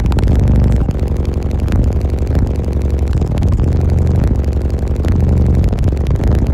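Fourteen-subwoofer car audio system playing bass-heavy music very loudly, heard from inside the vehicle, with deep bass notes that change in a repeating pattern.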